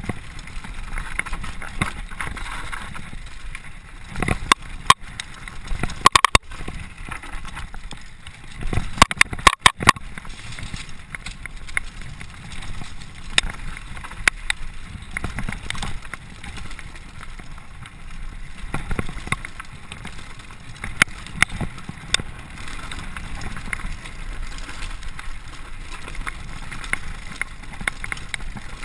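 Downhill mountain bike running fast over a dirt forest trail: a steady rush of tyre and wind noise with sharp clatters and knocks as it hits bumps, heaviest about four, six and nine to ten seconds in.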